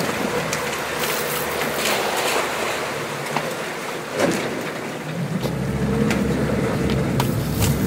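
Pontoon boat out on the bay: wind and water noise, with a low steady motor hum that comes in louder about five and a half seconds in.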